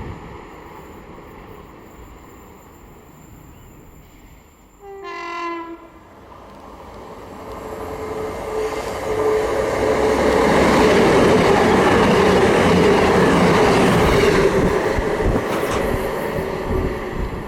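Class 221 Super Voyager diesel train sounds its horn briefly about five seconds in, then approaches and passes. Its engines and wheels build to a loud peak and fade away near the end.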